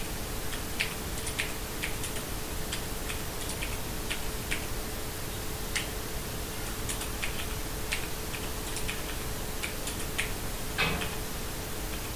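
Keystrokes on a GK61 mechanical keyboard with yellow switches, typed at an uneven pace of about two or three keys a second. One heavier, deeper key thump comes near the end, over a faint steady hum.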